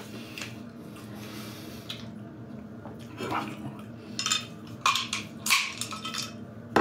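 Plastic snack packaging crinkling and rustling in several short bursts as it is handled and opened, mostly in the second half.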